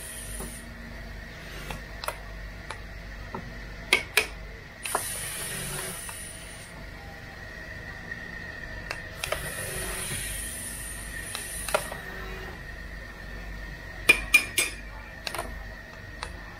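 Sharp metallic taps of a small hand hammer on crystal and a metal tray, in quick clusters of two to four, with two longer stretches of hissing noise, over a steady high hum.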